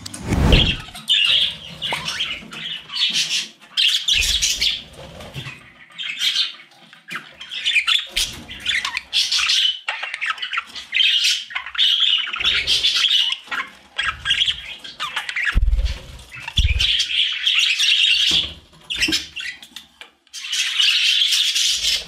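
A flock of budgerigars chattering and squawking in bursts of scratchy calls, with a few dull thumps among them.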